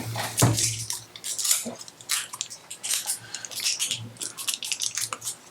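Irregular small clicks and rubbing as batteries are fitted into the battery tray of a plastic underwater phone housing.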